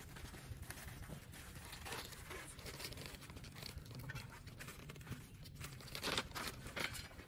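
Faint handling noise: plastic stretch film crinkling and rustling, with scattered small clicks and knocks, the sharpest about six seconds in.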